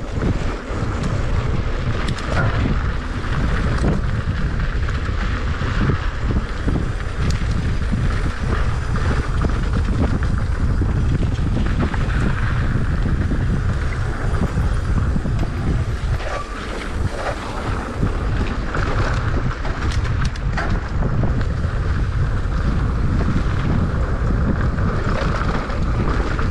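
Wind buffeting the microphone of a mountain bike's on-board camera during a fast descent on loose dirt, with steady tyre noise and frequent short knocks and rattles of the bike over rough ground.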